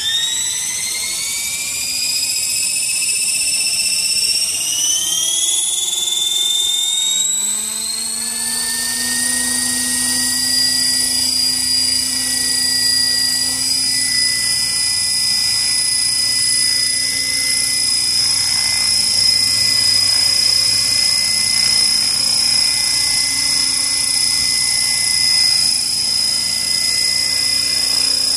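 Align T-REX 600 radio-controlled helicopter spooling up, its whine climbing steadily in pitch over the first eight or nine seconds. It then holds a steady high whine as it lifts off and hovers.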